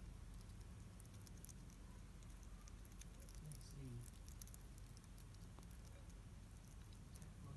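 Hedgehog crunching dry kibble: faint, rapid, irregular crunching clicks over a low steady hum.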